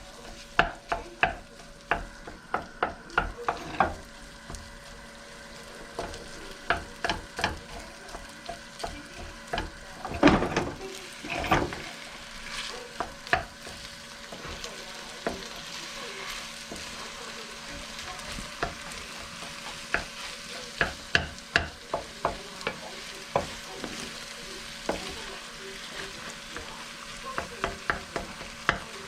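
Pork and egg fried rice sizzling in a hot pan while a spatula stirs and scrapes it, with frequent sharp taps of the utensil against the pan, bunched into quick runs of strokes.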